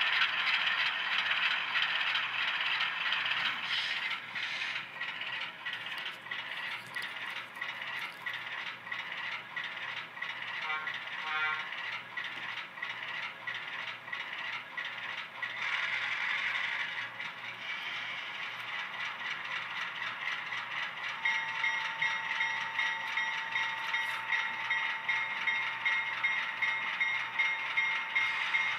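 Atlas RS-3 model diesel locomotive with an ESU LokSound decoder pulling a long freight train: a continuous rattling clatter of wheels running on the track. About two-thirds of the way through, a steady pulsing whine joins in, which the owner says comes from the decoder's back-EMF motor control and not from the motor.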